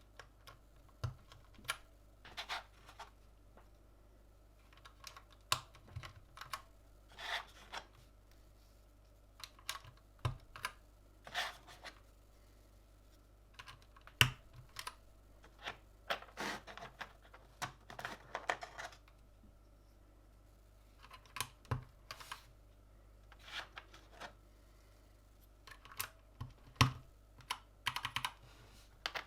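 Irregular plastic clicks and clacks from a Gamakay LK67 mechanical keyboard with Gateron red linear switches, coming in short clusters with pauses of a second or two between them.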